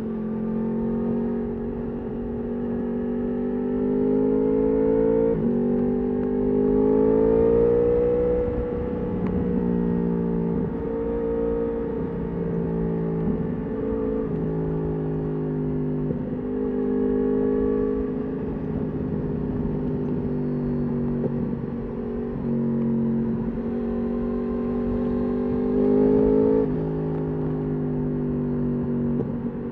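Yamaha R1 (RN22) crossplane inline-four through an Akrapovič exhaust, under way: the engine note climbs and falls with the throttle, with several sudden drops in pitch, the sharpest about five seconds in and again near the end.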